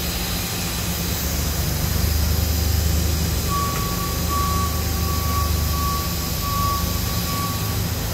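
Enshu GE480H horizontal machining center running under power, a steady machine hum with a faint high-pitched tone pulsing on and off through the middle.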